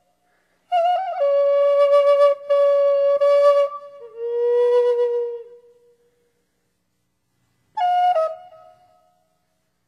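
Solo flute playing a slow melody: a long phrase of held notes that step downward, each entered with a quick slide, then a pause and a short phrase near the end.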